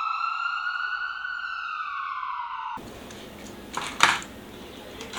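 A single siren wail that rises quickly, then slowly sinks in pitch and cuts off abruptly about three seconds in. A quiet room and a soft knock follow.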